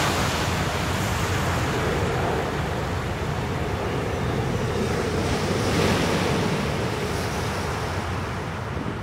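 Jet airliner's twin turbofan engines roaring as it climbs out overhead: a steady, broad rush with a deep rumble, swelling slightly partway through.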